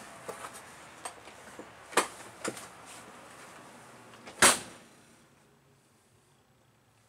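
A few light knocks and clicks, then a sharp bang about four and a half seconds in, fitting the trailer's entry door being shut. After the bang the steady outside background noise drops away to a quiet interior.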